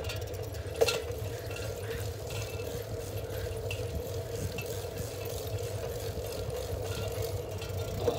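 Bicycle rolling along an asphalt street: steady tyre and wind noise with a low rumble and a steady hum, and a single sharp click about a second in.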